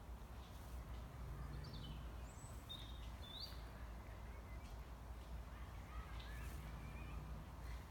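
Birds calling with short, high chirps over a faint, steady low background rumble. A cluster of chirps comes about one and a half to three and a half seconds in, and softer ones come near the end.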